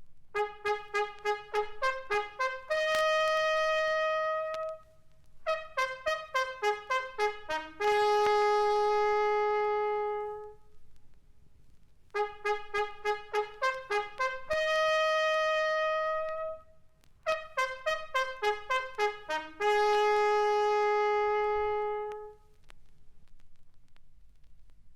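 Japanese military bugle call. A phrase of quick, short notes ends on a long held note and is answered by a second, similar phrase. The whole two-phrase call is then played twice, with faint record-surface noise underneath.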